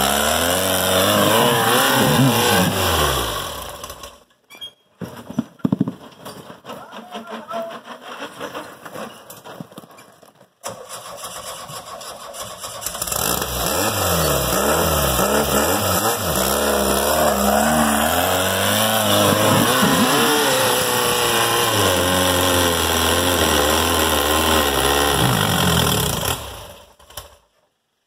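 Volkswagen-engined rail buggies revving hard under load while climbing a steep dirt hill, the engine pitch rising and falling with the throttle. The engine sound drops away about 4 seconds in, with a few sharp knocks in the quieter stretch after, then a buggy revs hard again for about 14 seconds before fading out.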